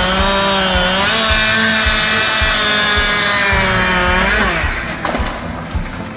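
Two-stroke chainsaw at full throttle cutting up the aspen's butt log, its pitch sagging and recovering as the chain bites into the wood. About four seconds in it winds down to a lower, quieter idle.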